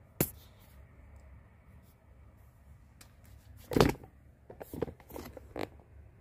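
Handling noises in a small room: a sharp click just after the start, a louder rustling knock a little before four seconds in, then a quick run of small clicks and rustles about a second later, over a low steady hum.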